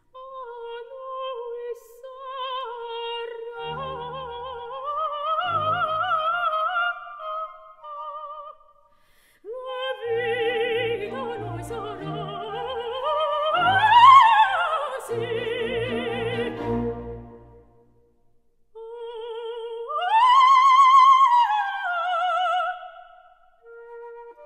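Operatic coloratura soprano singing with wide vibrato: long held high notes and a fast run that climbs to a peak past the middle and falls back, in three phrases split by short breaks, with light orchestral accompaniment.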